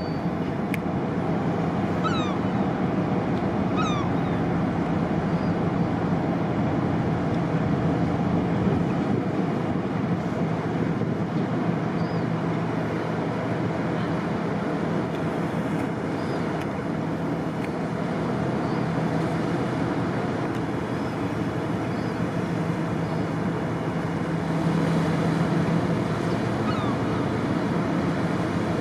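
Harbour tug's diesel engines running steadily, a low even drone with a constant hum. Two brief high falling calls cut through about two and four seconds in, and a fainter one near the end.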